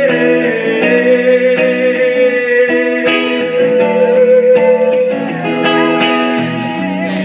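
Live band music: guitar chords played in a steady rhythm under one long, wavering held note that ends about five seconds in.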